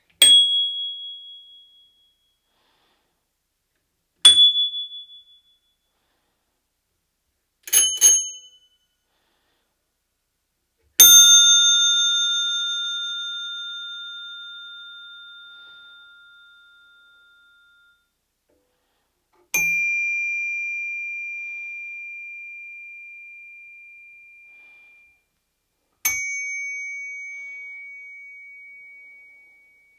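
A series of different bicycle bells, each rung in turn a few seconds apart and each at its own pitch. The first three give short, quickly fading dings, the third struck twice in quick succession. The next three ring on much longer, the first of these sustaining a clear ring of several tones for about six seconds.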